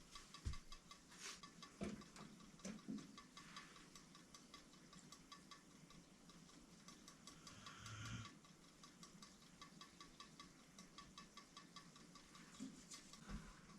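Near silence with faint, even ticking all the way through, and a few soft knocks.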